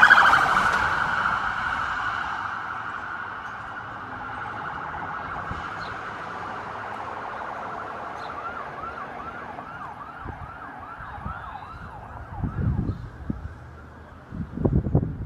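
Police car siren passing close by, loudest at the start with a fast warble, then fading as it moves away. Near the middle it switches to slower rising and falling wails. Two short low rumbles come near the end.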